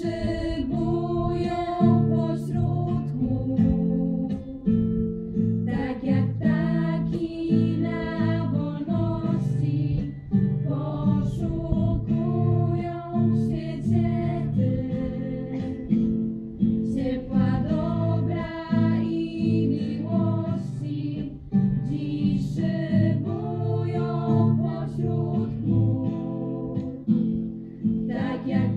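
A group of young women singing a song together, accompanied by a strummed acoustic guitar.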